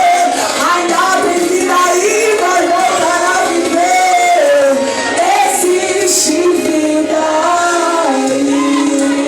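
Worship song: singing voices over instrumental accompaniment.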